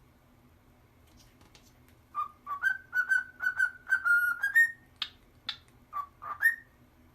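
Pet cockatoo whistling a tune. About two seconds in it starts a quick run of short whistled notes, then gives a few short upward swoops and ends on rising notes.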